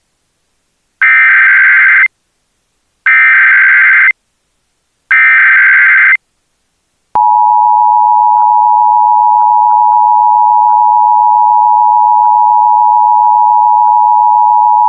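Emergency Alert System SAME header: three one-second bursts of digital data tones, a second apart. About seven seconds in, the EAS two-tone attention signal begins, a loud steady dual-pitched beep.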